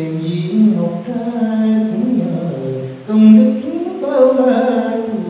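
Singing of a Vietnamese Buddhist devotional song in praise of a Zen master, long held notes sliding from pitch to pitch.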